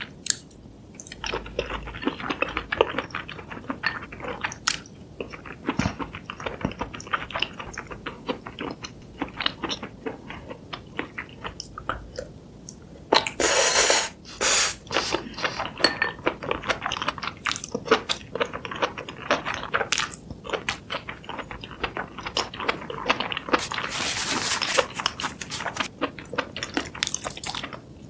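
Close-miked, wet chewing and mouth sounds of someone eating spicy stewed noodles, enoki mushrooms and fish cakes, full of small clicks and smacks. There is a short, loud, hissy burst about halfway through.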